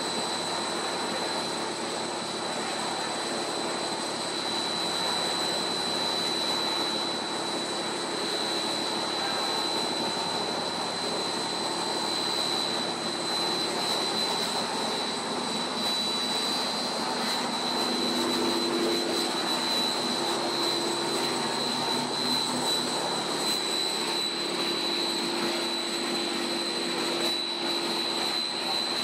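Monolayer blown film extrusion line running: a steady mechanical hum and hiss with a thin, high, constant whine over it.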